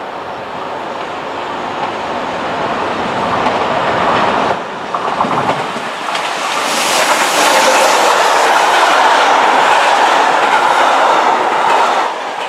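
Passenger train hauled by an electric locomotive approaching and passing close by at speed: the wheel and rail noise builds from about six seconds in and stays loud as the coaches run past, easing slightly near the end.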